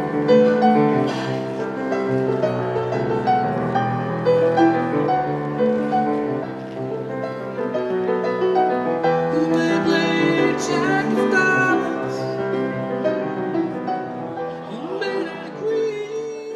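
Background music: a slow song with piano and a singing voice.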